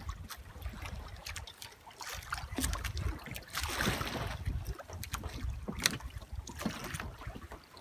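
Wind rumbling on the microphone and water sloshing against a small boat's hull, with scattered sharp clicks and a short rush of noise about four seconds in.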